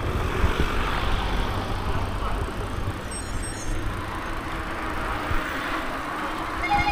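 Steady vehicle noise, a low rumble with a hiss that swells and fades. A horn starts to sound right at the end.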